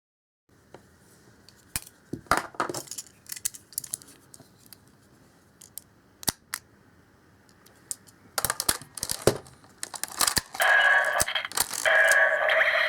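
Sharp plastic clicks and rattles of a Kyoryuger toy and its Jyudenchi battery being handled. About ten seconds in, the toy's electronic sound effect plays through its small speaker, two pitched stretches in a row.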